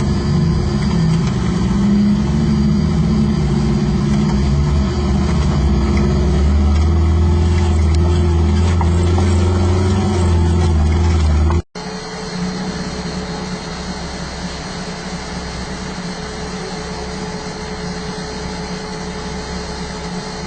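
Off-road vehicle engine running at low speed, with a loud low drone; about twelve seconds in the sound cuts off abruptly and is replaced by a quieter, steadier engine hum.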